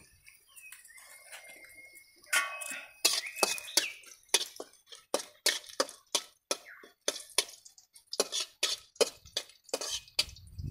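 Footsteps on hard-packed earth, a run of short, sharp steps about two to three a second starting about three seconds in. A low rumble comes in near the end.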